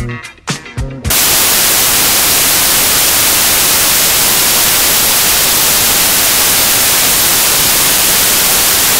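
Upbeat background music cuts off about a second in and gives way to loud, steady static hiss, like white noise, that covers the whole range from low to high.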